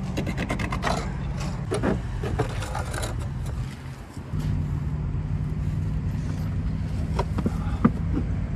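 Knife cutting and scraping at a damaged plastic bumper cover, a quick run of scratchy clicks in the first three seconds, over a steady low engine hum. A few sharp knocks come near the end.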